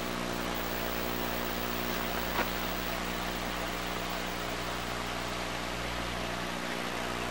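Steady outdoor background: an even hiss with a low, constant hum under it, and a single faint click about two and a half seconds in.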